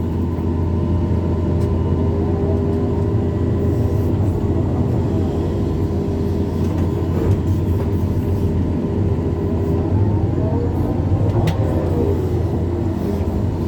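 Excavator's diesel engine running steadily under working load, with a whine that rises and falls twice as the hydraulics move the arm and bucket.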